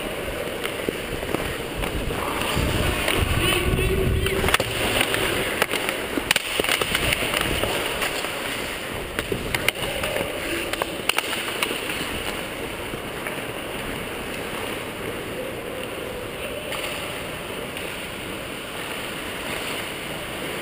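Ice hockey play on the rink: skate blades scraping and carving across the ice, with several sharp clacks of sticks and puck, mostly between about 4 and 11 seconds in.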